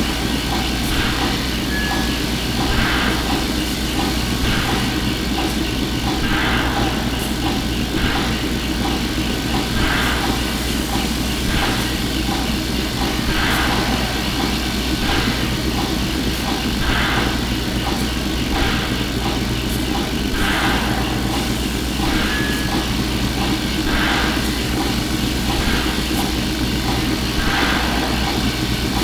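Sci-fi space station repair bay ambience heard from close by: a steady low machine hum under constant mechanical noise, with soft swells pulsing roughly every two seconds and two short high beeps.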